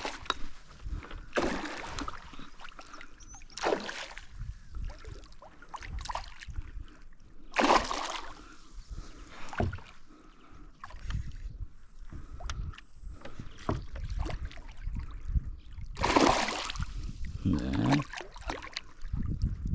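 Water splashing and sloshing around a small fishing boat in irregular bursts, several seconds apart.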